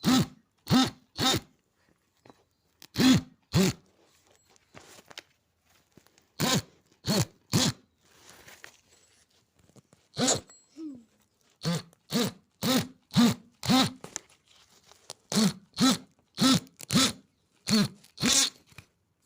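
A dog barking repeatedly in bursts of two to six short barks, about two a second.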